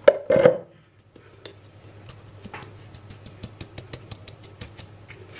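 Hand tapping the side of a stainless-steel mesh sieve to sift flour into a bowl: a run of light, quick taps, several a second. A brief louder clunk comes right at the start.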